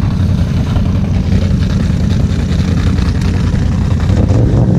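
ATV engine held at high throttle, running steadily while the stuck machine's tires spin in a mud hole, throwing up spray.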